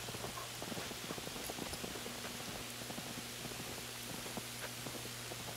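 Footsteps crunching through snow: a quiet, irregular run of soft crunches as someone walks.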